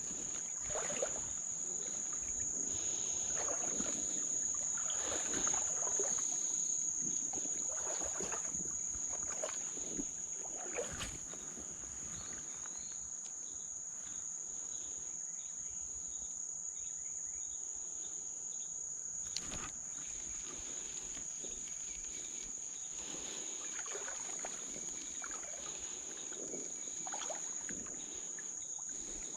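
Steady, high-pitched insect chorus droning throughout, with irregular sloshing and splashing of creek water, busiest in the first ten seconds or so.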